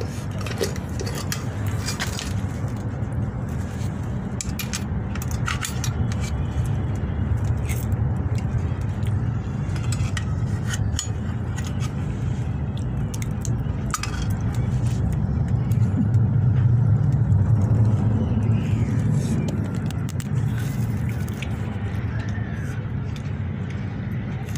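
Scattered clicks and short scrapes of objects handled close to the microphone, over a steady low rumble that swells about two-thirds of the way through.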